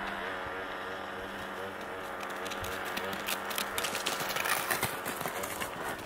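A lure-coursing machine's motor runs with a steady hum and a wavering whine. From about three seconds in, a rapid crunching patter of running feet on packed snow comes in.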